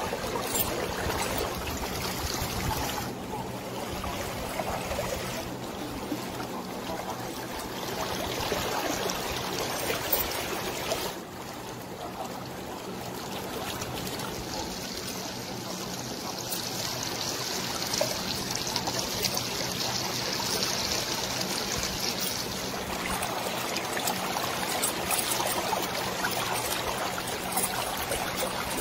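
Shallow river water running and trickling over rocks around the feet and the chain. The sound shifts abruptly a few times along the way.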